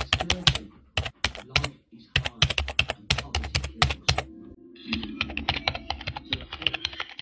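Computer keyboard typing sound effect: a fast, irregular run of key clicks that grows denser in the last two seconds, then cuts off suddenly.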